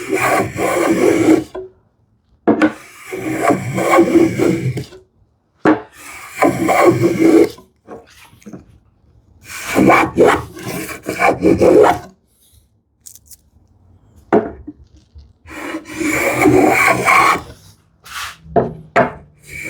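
Hand plane shaving ash in a series of about six long strokes with short pauses between them, cutting a rebate along the back edge of the cabinet case.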